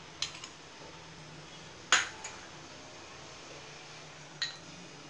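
A few sharp metallic clinks of cookware on a gas stove, a nonstick kadai and a utensil knocking, the loudest about two seconds in and one near the end ringing briefly. A faint steady low hum lies under them.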